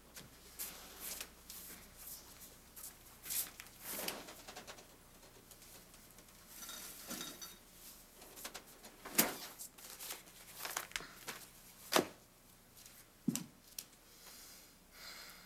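Quiet kitchen handling sounds: a refrigerator door opened and shut and items set down on a table, with a few sharp knocks and some faint rustling.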